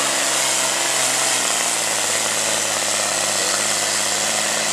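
John Deere pulling tractor's diesel engine running flat out under the load of a weight-transfer sled, a loud, steady drone with a strong hiss above it. Its pitch drops about a second and a half in as the sled pulls the engine down toward the end of the pull.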